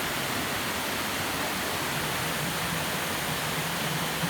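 Waterfall rushing close by, a steady even roar of falling water.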